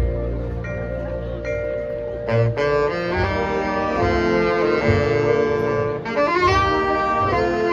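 Marching band playing: a low drum hit under a held chord, then the full horn and woodwind section comes in louder a couple of seconds in, with low drum hits beneath.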